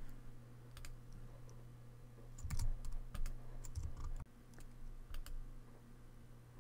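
A few scattered computer keyboard and mouse clicks, faint, over a low steady hum.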